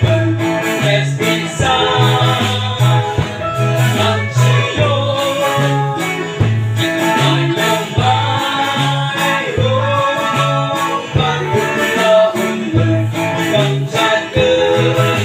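Live band music: several voices singing together over acoustic and electric guitars, a bass line and drums.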